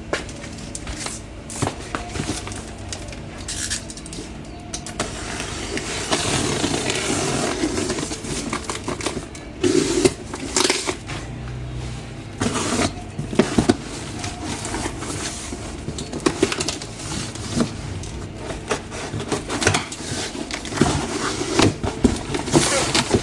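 A parcel being unpacked by hand: cardboard and packaging scraping and rustling, with scattered knocks and clicks.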